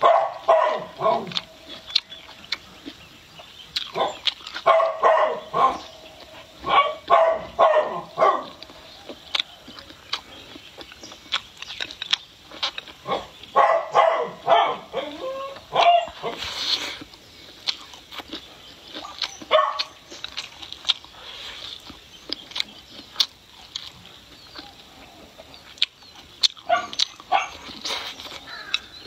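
A dog barking in several bursts of quick barks, over close-up chewing and mouth clicks.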